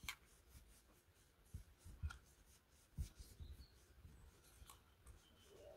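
Faint rubbing of a cloth over the metal case of a small dial gauge as it is wiped clean by hand, with a few light knocks as the gauge is handled, about two and three seconds in.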